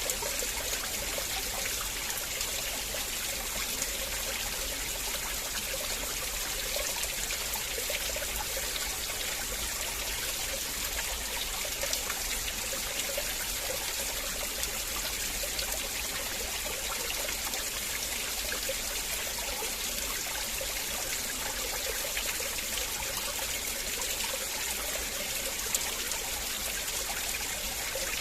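River water flowing steadily over stones, a continuous rushing and trickling with small splashes.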